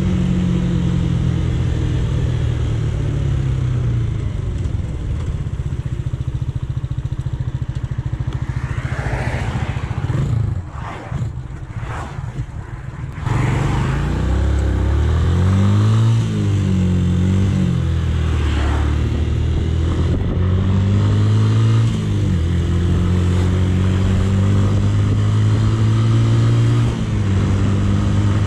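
Romet K125's 125cc single-cylinder engine from the rider's seat, with wind noise: it slows with falling revs and drops to a quiet idle for about three seconds near the middle. It then pulls away, revving up in several steps as it shifts up through the gears, and settles into a steady cruise.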